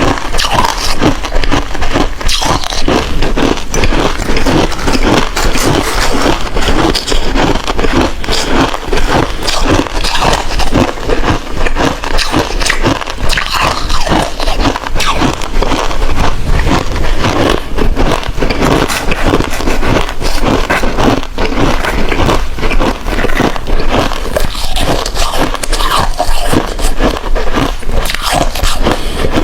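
Hard ice being bitten and chewed close to the microphone: a dense, unbroken run of loud crunches and cracks.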